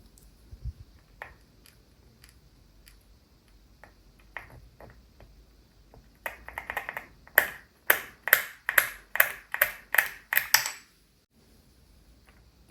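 Mechanical keyboard keys being pressed: a few scattered clicks at first, then a run of about eight firm keystrokes, roughly two a second, that stops suddenly about 11 seconds in.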